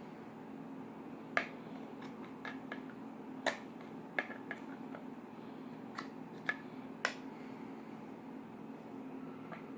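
Irregular sharp clicks and small pops, about ten of them spaced unevenly, from handling slime, over a steady low hum.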